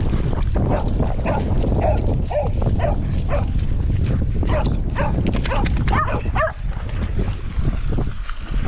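A dog barking and yelping in a quick series of short, high calls over steady low wind noise, stopping about six and a half seconds in.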